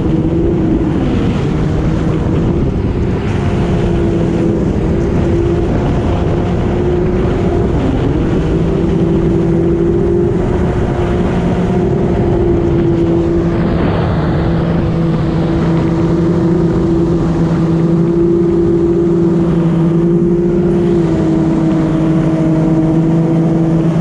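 Jet ski engine running at steady high speed under way, holding a nearly constant pitch with small wavers, over a steady rush of wind and water.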